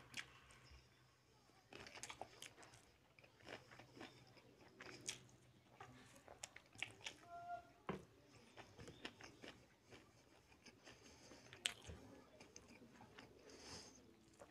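Close-miked mouth sounds of a person eating curry and rice by hand: quiet wet chewing and lip smacks with irregular sharp clicks and crunches, plus fingers working the rice on the plate.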